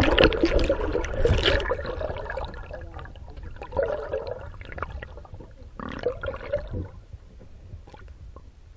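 Muffled water gurgling and sloshing picked up by a camera held underwater, loudest in the first two seconds and fading, with a few short gurgles later on.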